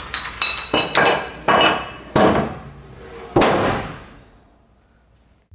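A chain of 13 dominoes of growing size toppling in turn: quick light clacks in the first second give way to ever heavier slams spaced further apart, each with an echoing tail. The last and deepest slam, about three and a half seconds in, is the metre-tall, roughly 100-pound domino hitting the floor, and its echo dies away.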